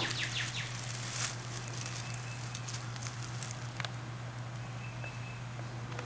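Faint outdoor background: a steady low drone and hiss, with a couple of faint short rustles about one and four seconds in.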